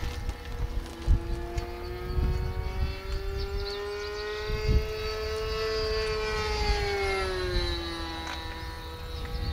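A radio-controlled model aircraft's engine running with a steady buzz, its pitch rising slowly and then falling back about eight seconds in. A couple of light knocks sound over it.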